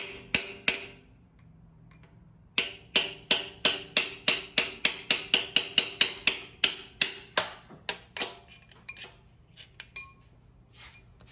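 Hammer blows on a steel driver, seating a freeze plug into its bore in a 6.7L Cummins engine block, each blow with a short metallic ring. Three blows, a pause of about two seconds, then a steady run of blows about three a second, tapering to a few lighter taps near the end.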